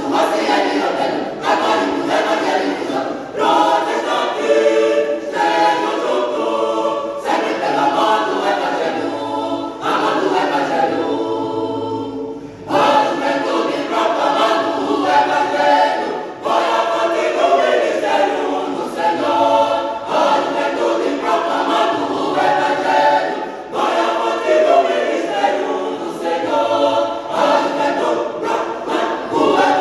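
Choir singing a Christian song a cappella, with a short break between phrases about twelve seconds in.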